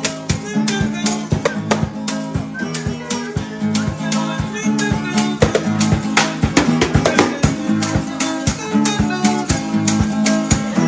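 Acoustic guitar played over a fast, steady rhythm on skin-headed wooden hand drums.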